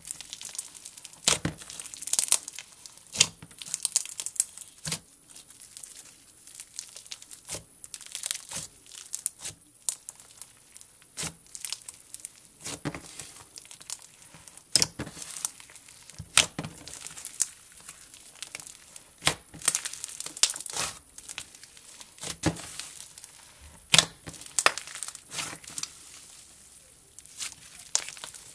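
Hands squeezing, stretching and kneading butter slime with crushed jelly cube slime mixed in. The result is irregular crunchy crackles and sharp pops as the squishy pieces inside are pressed and torn.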